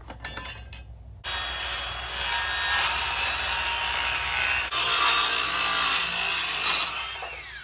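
Cordless jigsaw cutting a long line through a thin wood veneer panel. A few small clicks come first; the saw starts about a second in, cuts steadily for about six seconds, then the motor winds down near the end.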